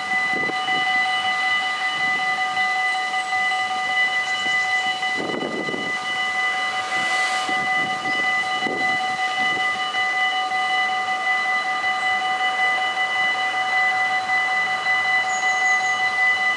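Dutch automatic level-crossing warning bells ringing steadily while the barriers are down, a continuous ring at several fixed pitches. A short low rumble comes in about five seconds in.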